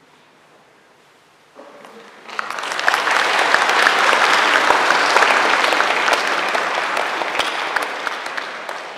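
Audience applauding, starting about two seconds in, building quickly to a steady loud clapping and then slowly fading near the end.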